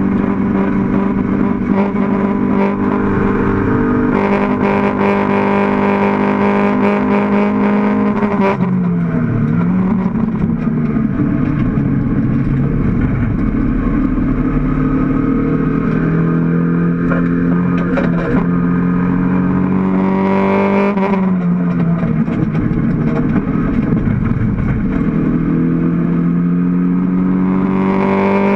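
In-cabin engine note of a Mk1 Toyota MR2 race car under hard acceleration. The revs are held high and steady, then drop sharply as the driver lifts off about a third of the way in. They climb slowly again, dip once more about two-thirds through, and rise again near the end.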